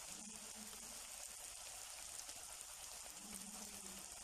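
Battered onion rings deep-frying in hot oil: a steady, faint sizzle of bubbling oil.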